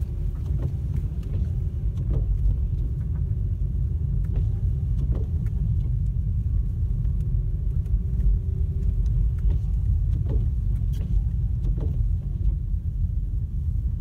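Car driving on a snow-covered road, heard from inside the cabin: a steady low rumble of engine and tyres, with scattered light clicks and knocks.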